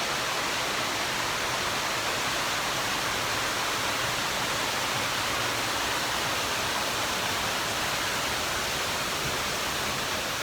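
Water pouring over a small waterfall, a steady rushing hiss that eases slightly near the end.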